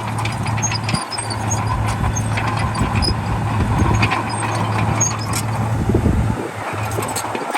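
Heavy earth-moving machine's diesel engine running steadily with a low hum, with scattered metallic clicks and squeaks over it.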